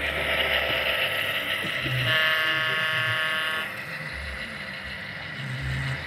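HO-scale model freight train running past close by: the diesel locomotive's electric motor and the wheels rolling on the rails. About two seconds in, a steady high tone sounds for about a second and a half and stops abruptly.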